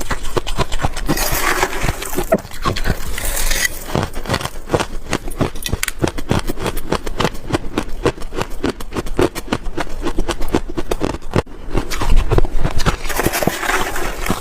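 Close-miked mouth chewing and crunching freezer frost ice: a steady run of crisp crunches, several a second.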